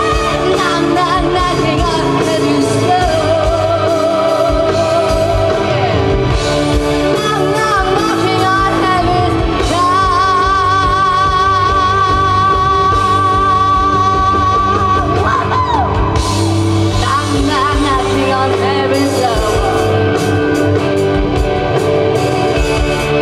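Live rock band with a female singer, recorded from the audience: the singer wails without clear words over drums, bass and electric guitar, with a long high note held with vibrato about ten seconds in.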